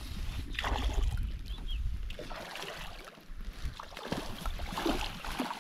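Wind buffeting the microphone for the first couple of seconds, then scattered light knocks and rustles of handling in a small aluminium boat.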